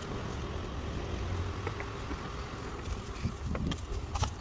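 Wind buffeting a phone microphone as a steady low rumble, with a few faint clicks and knocks in the second half.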